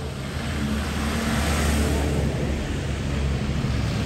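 Land Rover Defender driving through the stone archway and past at low speed, its engine and tyres swelling loudest about one and a half to two seconds in. A motor scooter comes through the gate near the end.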